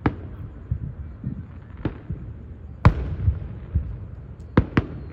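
Aerial fireworks shells bursting in a display: about five sharp bangs, the loudest near the middle and two in quick succession near the end, with softer low thuds and rumble between them.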